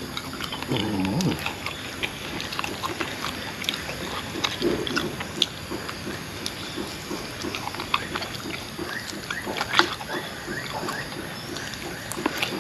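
A man chewing and gnawing grilled pork rib meat off the bone, with repeated wet smacking and clicking mouth noises and a short hum of the voice about a second in.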